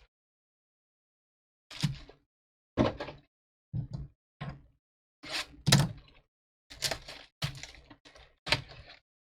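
Cardboard box and foil packs of trading cards being handled and opened: a series of about nine short thuds and rustles, a second or less apart.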